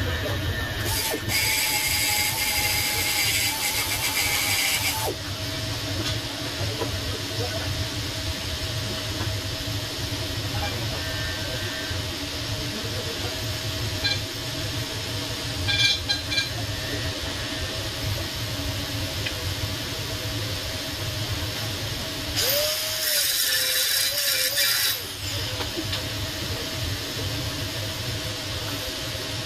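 TIG welding on stainless steel pipe: a steady hum of machinery, broken twice by a few seconds of sharp hissing, once near the start and again about three-quarters of the way through.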